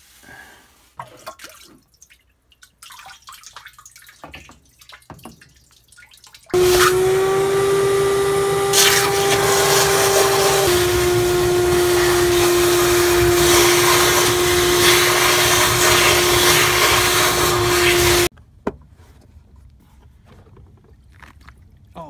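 Wet/dry shop vacuum switched on about six seconds in, running with a steady whine while it sucks water out of a washing-machine tub. Its pitch steps down slightly partway through, and it cuts off abruptly about twelve seconds after starting. Before it starts there are light handling clicks and knocks.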